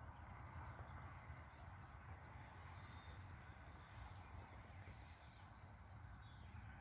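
Near silence: quiet rural dawn ambience with faint background hiss and a few faint, brief high bird chirps.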